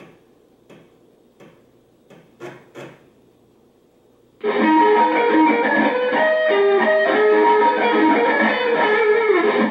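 A few sharp clicks, then about four and a half seconds in, loud music with an electric-guitar sound starts abruptly: the demo's song played by an Amiga 1000.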